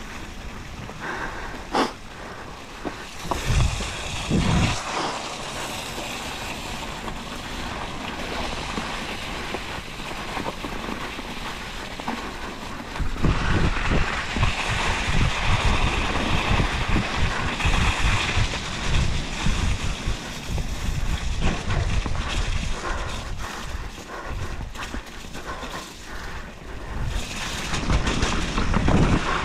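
Mountain bike riding a snowy, muddy trail: tyres rolling and wind buffeting the microphone, with knocks and rattles from the bike over bumps. It turns louder and rougher from about halfway through.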